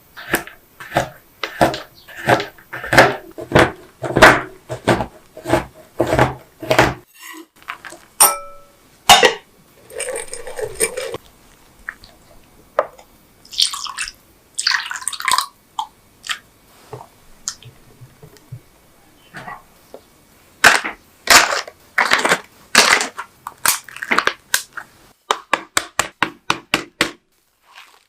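Kitchen food-preparation sounds: runs of sharp knocks, about two or three a second, with brief scraping or rustling stretches between, quickening to a fast run near the end.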